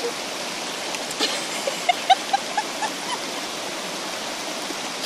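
Steady rushing outdoor background noise, with a quick run of about six short, slightly rising chirps about two seconds in.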